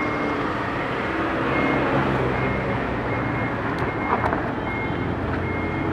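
Reversing alarm of a minibus ambulance, giving short high beeps again and again over the low hum of its running engine as it manoeuvres.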